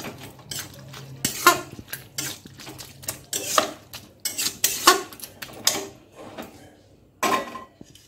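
A spatula scraping and knocking against a kadai as cooked curry is gathered and scraped out into a steel bowl, in irregular strokes with a short pause before a last loud scrape near the end.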